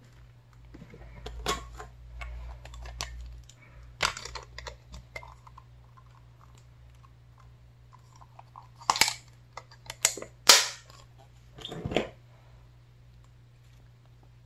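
Clear plastic photocard sleeves and a hard clear plastic case being handled: soft plastic rustling and crinkling at first, then several sharp plastic clicks and snaps in the second half. A faint steady low hum sits underneath.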